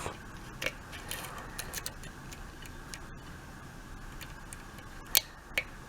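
Faint scattered clicks of a lock pick and tension wrench working the pins of a Binco mortise lock cylinder during single-pin picking, with a few sharper clicks about five seconds in.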